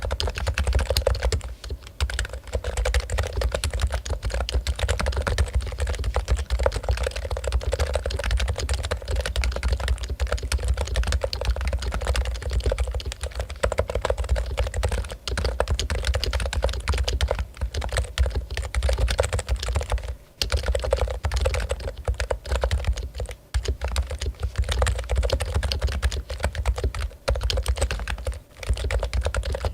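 Fast, continuous typing on a Topre Realforce keyboard, its electrostatic capacitive rubber-dome switches giving dense rapid keystrokes, with brief pauses about twenty, twenty-three and twenty-eight seconds in.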